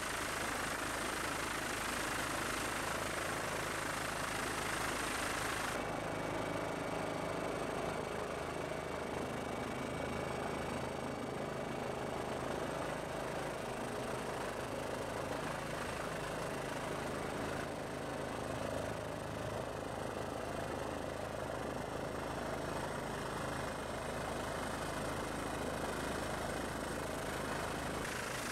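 Helicopter running steadily, heard from aboard: a constant drone with several steady tones. About six seconds in the sound changes abruptly and loses much of its upper hiss.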